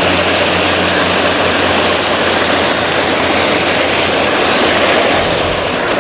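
Pond paddlewheel aerator running: a steady motor hum under the continuous splashing and churning of its paddles in the water.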